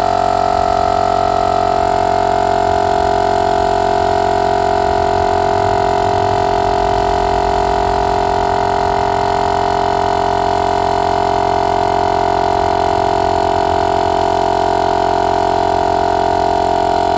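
Motomaster 12 V direct-drive portable air compressor running steadily as it pumps up a car tire toward its 44 psi shut-off, a loud, even hum with a strong steady pitch.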